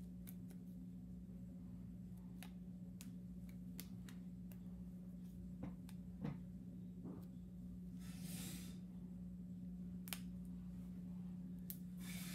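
Faint handling noises, scattered small clicks and two brief rustles, as hair is wrapped around a pencil to curl it, over a steady low hum.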